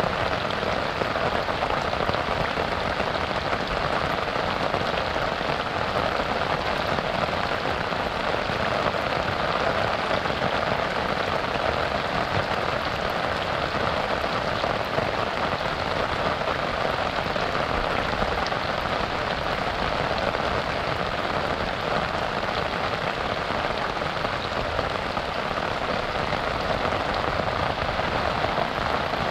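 Steady rain falling on a river's surface, an even hiss of drops with no breaks or changes.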